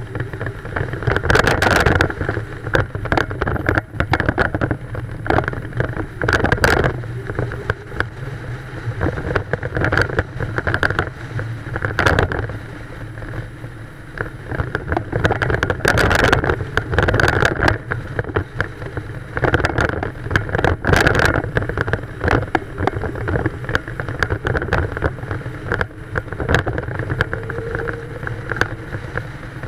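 An old car driving, heard from outside the car body: a steady low engine drone with road noise, wind, and frequent short knocks and rattles.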